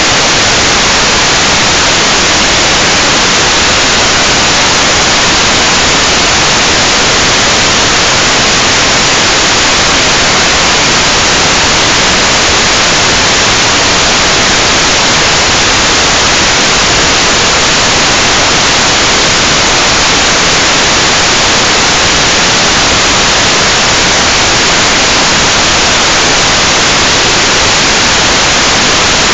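Loud, steady hiss of static from an analog FPV video receiver with no signal from the drone.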